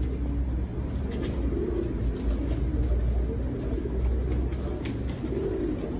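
Racing pigeons in a loft cooing over one another, with a few short sharp clicks and a steady low rumble underneath.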